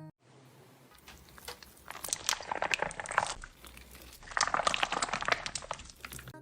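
Slime being squeezed and pressed, giving dense crackling, popping clicks in two louder bursts, the second near the end.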